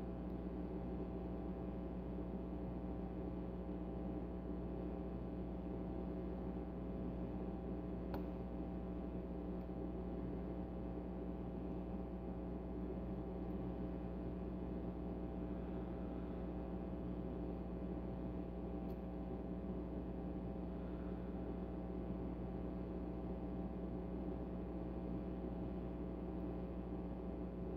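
Steady background hum made of several steady tones, with two faint sharp ticks, one about a third of the way in and one about two-thirds in, from a pick working the pins of a lock cylinder.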